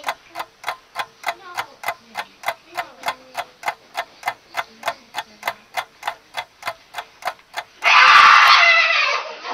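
Clock ticking sound effect: an even run of ticks, about three to four a second, marking a long wait passing. Near the end a loud shout of about a second and a half breaks in.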